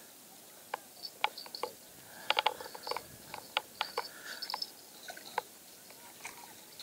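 Irregular light clicks and taps, with a cluster of sharper clicks about two and a half seconds in.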